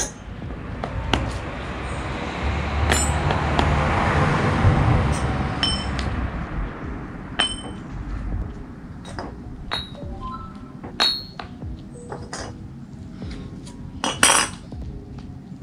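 Loose steel bicycle cassette sprockets clinking and ringing against each other as they are handled and cleaned, with a few seconds of steady rushing noise in the first half.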